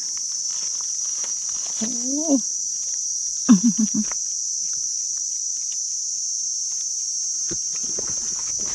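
Steady high-pitched drone of insects in the forest, with a person's brief wordless voice sounds about two and three and a half seconds in and a few light clicks and rustles near the end.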